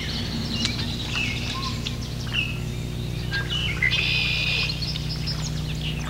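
Several marsh songbirds calling, with short chirps and whistled notes throughout and one harsh, buzzy call about four seconds in, over a steady low hum.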